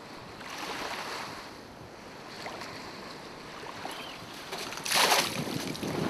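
Water sloshing and lapping around a swamped boat in the shallows, with wind on the microphone; a short, loud splash about five seconds in.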